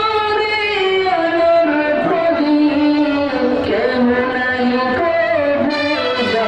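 A man singing a Bengali Islamic gojol (devotional song), with long held notes that slide from one pitch to the next.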